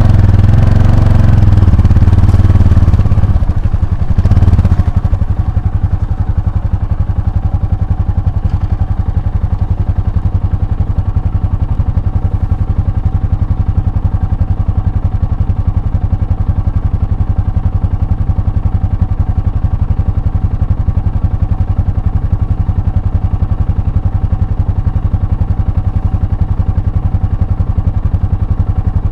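Motorcycle engine revving hard for the first four seconds or so, then running steadily at low, even revs for the rest.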